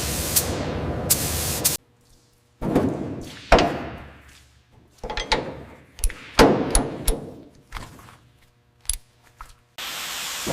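A steady hiss of spray that cuts off suddenly, followed by a run of metal clanks and thunks, some ringing briefly, spaced irregularly over several seconds; the hiss starts again near the end.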